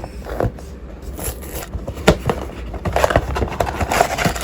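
A Lego set's cardboard box being opened and its contents handled: scraping and crackling with a few sharp knocks, busier in the second half.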